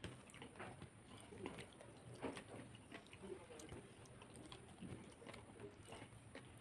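Faint wet clicks and squishes of a hand mixing rice and curry on a plate, with some chewing.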